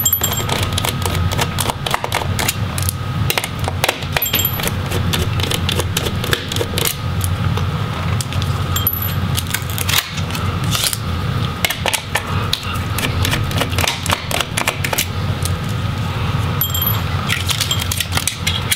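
Many small metallic clicks and rattles from a screwdriver backing out the screws that hold a laptop's CPU fan assembly, over a steady low hum.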